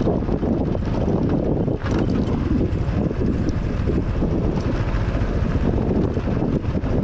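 Honda XRM 125 Fi motorcycle riding down a rough dirt road: wind buffeting the action camera's microphone, with the single-cylinder engine running and the tyres on loose dirt and stones underneath.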